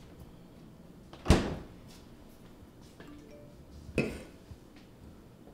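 Two sharp knocks of a kitchen cupboard door being shut, about two and a half seconds apart, the first the louder.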